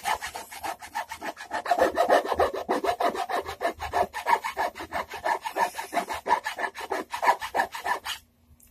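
Hand file rasping back and forth across the edge of a wooden electric-guitar body, rounding over the squared edge, at about five quick strokes a second. The filing stops abruptly just before the end.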